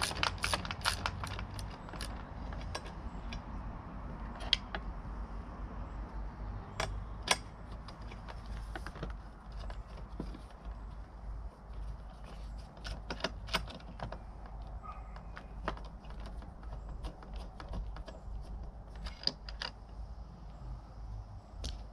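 A hand driver ratcheting in a quick run of even clicks as a motorcycle grab-rail bolt is undone. Scattered single clicks and knocks follow as the tool and the loosened rail are handled.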